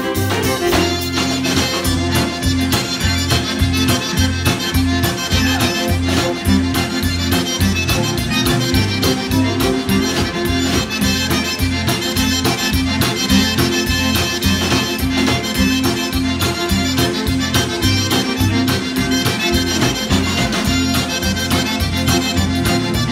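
Cajun band playing an instrumental two-step live: accordion carrying the tune with two fiddles, over acoustic guitar and a drum kit keeping a steady, even beat.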